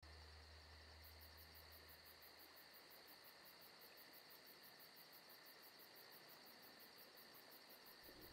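Faint insect chirping: a rapid pulsed chirp about four or five times a second, starting about a second in, over a steady high insect drone. A low hum fades out over the first two seconds.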